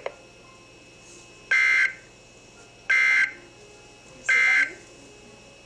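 Emergency Alert System end-of-message data signal: three short, identical bursts of harsh two-tone digital data about a second and a half apart, marking the end of the alert, over a faint steady hiss.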